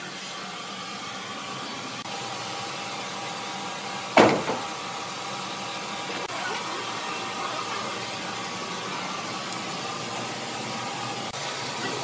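Horizontal band sawmill running with a steady machine hum and whine, the blade not yet in the log. About four seconds in, a single sharp, loud knock.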